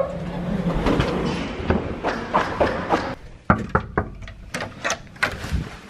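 Knuckles knocking on an interior door: a run of sharp, uneven knocks in the second half, after a stretch of handling and rustling noise.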